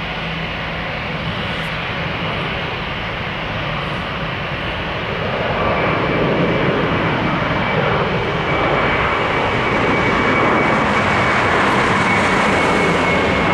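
Airbus A320 airliner's jet engines running as the plane goes by, growing louder about halfway through, when a steady high whine comes in over the roar and a lower tone falls in pitch.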